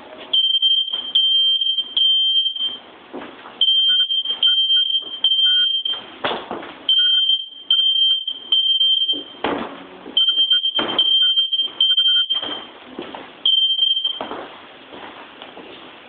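Smoke alarm sounding its high, shrill beep in repeating groups of three (the temporal-three fire-alarm pattern), set off by smoke from cooking. The beeping stops after a final single beep near the end, with short bursts of noise between the beeps.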